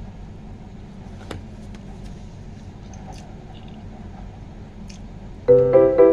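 Quiet eating sounds of someone chewing and slurping noodles, with a few light clicks of a spoon, over a steady low hum. About five and a half seconds in, loud piano music starts.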